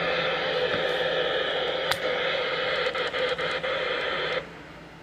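Steady hiss of static from a radio's small speaker, cutting out about four seconds in.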